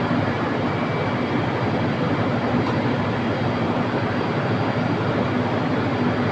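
Loud, steady machinery noise with a faint low hum, unchanging throughout.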